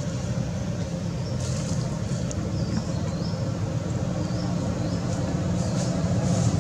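Steady low engine rumble, like a motor vehicle running nearby, with a few faint high chirps about two to four seconds in.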